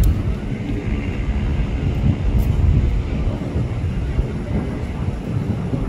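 Airbus A321-231's IAE V2500 turbofan engines at takeoff thrust, a steady deep rumble as the jet lifts off and climbs away.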